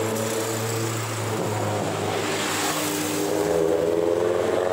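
Traffic on a city avenue: car engines running, with tyre and engine noise swelling as a car passes close about midway. Near the end an engine accelerates and its pitch rises.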